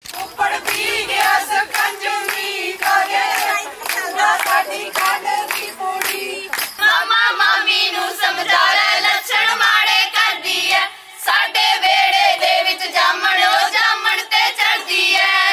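A group of voices singing together, with repeated hand clapping throughout.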